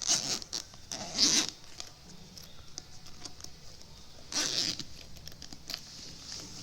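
Watch packaging being handled during unboxing: three short rasping rustles, near the start, about a second in, and midway through.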